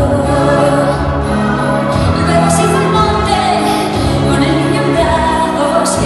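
Music with singing voices over sustained chords.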